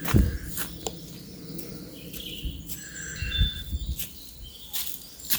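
Birds chirping outdoors, a few short calls around the middle, with a loud thump right at the start and scattered clicks and knocks.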